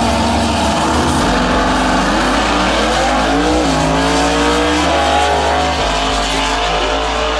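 Drag-race cars launching and accelerating hard down the strip. The engine note climbs and drops back at each of several gear changes.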